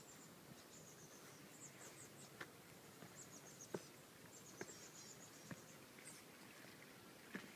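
Near silence: faint footsteps on a garden path, a soft step roughly once a second, with short runs of thin, high chirping in between.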